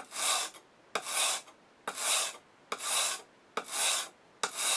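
A wide A2 steel blade stroked repeatedly across a Norton coarse India sharpening stone, about one rasping stroke a second, each starting with a short click as the edge meets the stone: honing a 30-degree bevel on the coarse grit.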